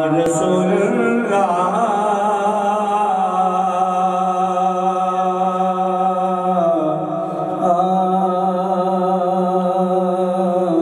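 Male naat reciter singing unaccompanied into a microphone over a PA, holding long drawn-out notes with a wavering pitch; the first long note gives way to a second about two-thirds of the way through.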